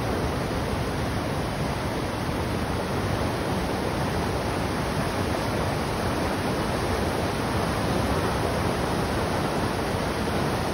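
River in flood after heavy rain, overflowing its bank: fast, turbulent water rushing steadily.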